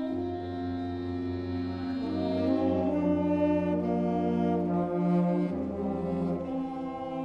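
Elementary school concert band playing a slow passage of held chords over a sustained low bass note, with the chords changing about once a second.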